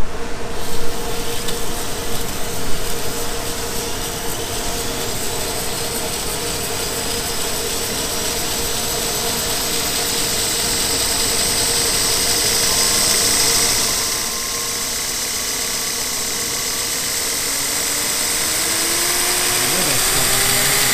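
Shop-built 2x72 belt grinder running, its motor and abrasive belt spinning with a steady whir. The level dips slightly about two-thirds of the way through and then climbs gradually toward the end.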